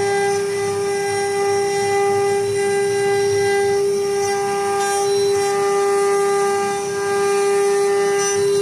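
Single-head 1325 CNC router's spindle running with a steady, high-pitched whine, and a few brief hissy bursts of cutting noise.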